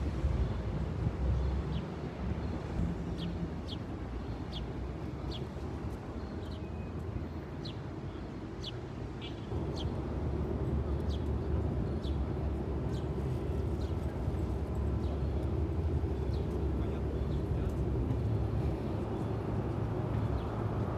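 Street ambience with a steady low traffic rumble that grows louder about halfway through. Over it, a bird repeats short, high, falling chirps about once or twice a second, fading out near the end.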